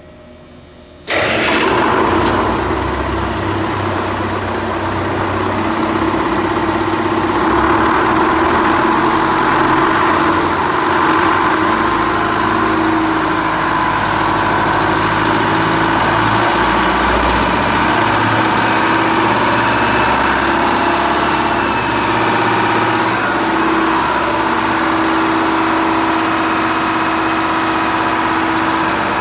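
Detroit Diesel 4-71 two-stroke, four-cylinder diesel engine starting abruptly about a second in, then running steadily.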